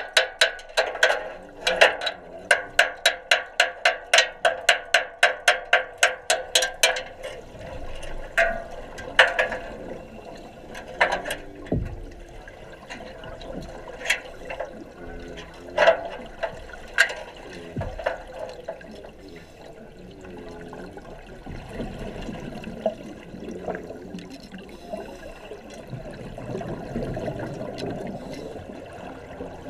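Water bubbling and rushing in an underwater welding tank, heard through a submerged camera. It opens with a quick run of sharp clicks, about four a second, that stops about seven seconds in; a few single louder knocks follow.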